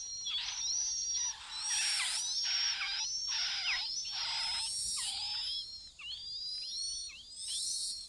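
Chinese hwamei nestlings begging to be fed, a dense chorus of thin, high chirps with a few louder, harsher surges of calling.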